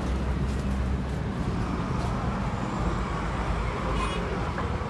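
Steady low rumble and hum inside a crowded car of Addis Ababa's electric light-rail train, with a brief faint high tone about four seconds in.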